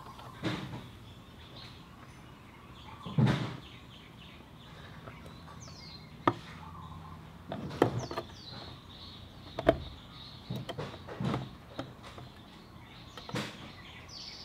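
Hands working the oil drain cap, spring and mesh strainer off a Yamaha Zuma 125 scooter engine: scattered clicks and knocks of metal parts, the loudest about three seconds in. Faint bird chirps in the background.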